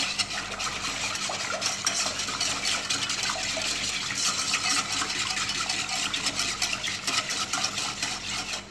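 Wire whisk stirring sugar and water in a metal saucepan: a rapid, continuous scraping and clinking of the wires against the pot that cuts off at the very end.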